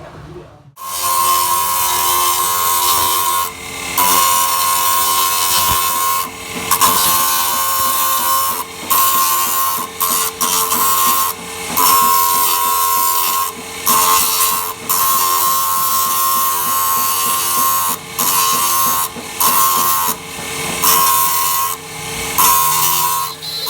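Grinding of rusted steel gear teeth: a steady, high-pitched grinding screech in stretches of about one to three seconds, broken again and again by short pauses.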